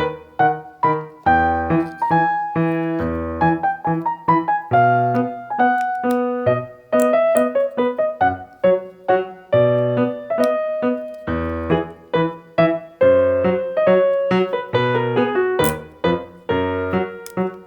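Background piano music: a steady rhythm of struck notes that ring and fade.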